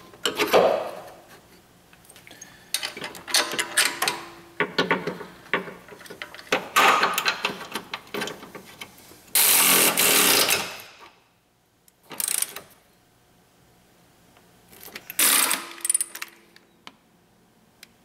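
A hand ratchet wrench clicking in repeated short bursts as bolts are run in and tightened, with some metal tool clatter. A louder, longer burst of noise comes in the middle and stops abruptly.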